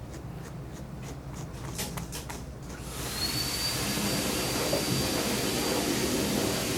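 A series of light clicks, then about three seconds in a high-speed electric blower motor switches on: a steady rush of air with a high whine on top.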